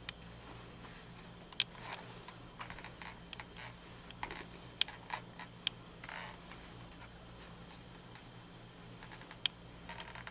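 Faint handling sounds at a pressing board: scattered light clicks and taps as a steam iron is set down and moved and quilt fabric and a pin are handled, with a short soft rustle about six seconds in. A steady low hum runs underneath.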